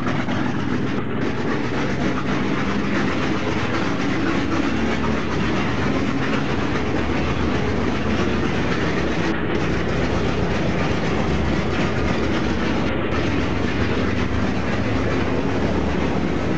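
Ilyushin Il-14T's left Shvetsov ASh-82T fourteen-cylinder radial piston engine running steadily, heard from inside the aircraft's cabin.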